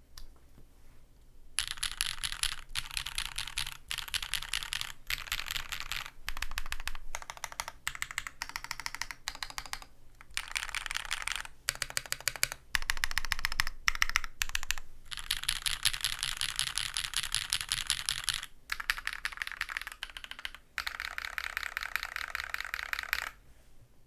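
Typing on a custom Matrix Navi mechanical keyboard with Sarokeys Strawberry Wine switches lubed with Krytox 205g0, a non-flexcut aluminium plate and DCX keycaps. Fast runs of key clacks come in bursts with short pauses, starting about a second and a half in and stopping just before the end.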